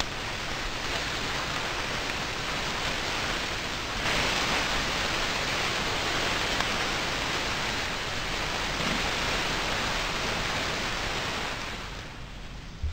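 80/20 ground chuck burger patties sizzling on the hot grate of a Big Green Egg kamado grill over charcoal, the sizzle growing louder about four seconds in as another patty goes on. Near the end it drops off as the ceramic lid is shut, with a short dull knock.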